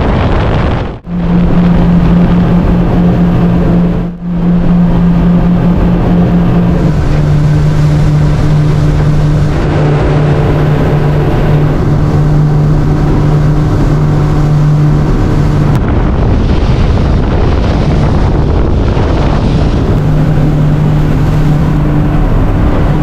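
Boat's motor running under way, with heavy wind and water rush. The engine's hum steps slightly lower about seven seconds in, is lost in the rush for a few seconds after the middle, and comes back near the end; the sound drops out briefly twice near the start.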